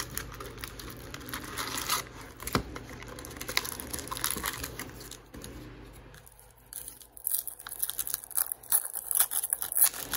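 A hockey card pack's wrapper being torn open and crinkled by hand. There is steady rustling for the first several seconds, then a run of sharp crackles near the end.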